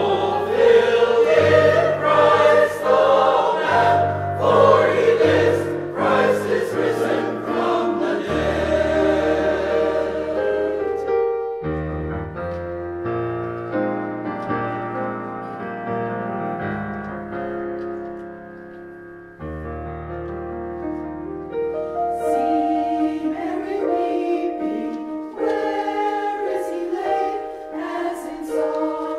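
Choir singing a sacred anthem over long, low sustained accompaniment notes. The music eases off about two-thirds of the way through, then swells again.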